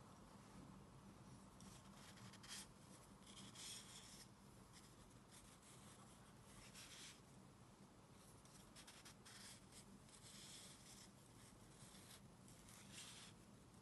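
Faint, irregular rubbing and light scraping of wooden knitting needles and yarn as knit stitches are worked.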